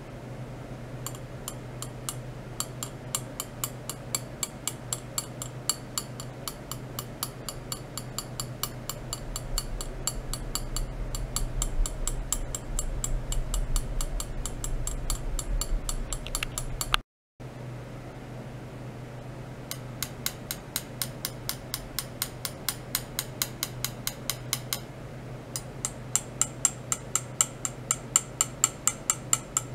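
Ultrasonic test rig of stainless rods and wires, driven by a function generator, giving a fast, even train of sharp metallic ticks, several a second, over a steady low electrical hum. The ticks are the audible side of the pulse and sweep oscillation setting the metal into nonlinear resonance. The sound cuts out for a moment a little past halfway, then the ticking resumes.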